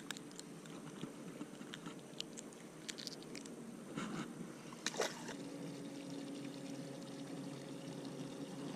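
Faint trickling water with scattered small clicks and knocks, one louder knock about five seconds in. A faint steady hum starts at the same moment.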